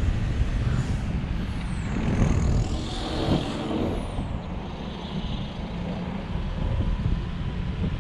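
Road and wind noise of a car driving on a motorway, with a louder hiss and rumble about three seconds in.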